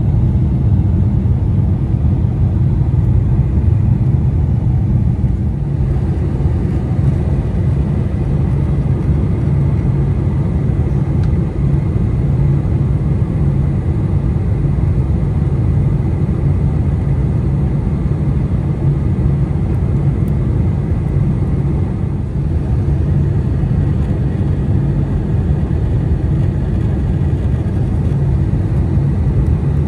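Steady low rumble of a Boeing 747-400's engines and airflow, heard from inside the passenger cabin.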